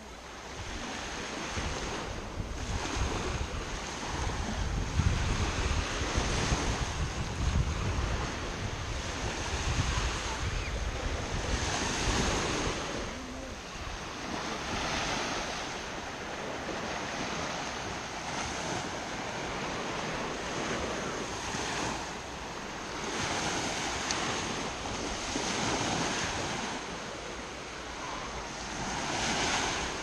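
Small waves breaking and washing up a sandy shore, the surf swelling and ebbing every few seconds. Wind buffets the microphone, most heavily in the first third.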